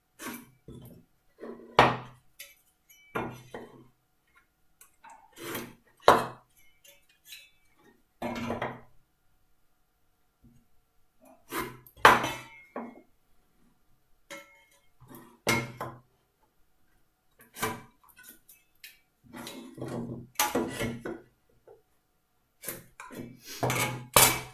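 Irregular knocks and clinks of hard objects handled on a workbench: a tri-square and pencil being set down and moved against the timber while lines are marked around it.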